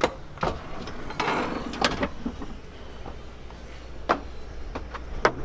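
Irregular knocks and clunks of footsteps and a door as someone climbs out of a stairwell onto a rooftop deck, over a low steady rumble.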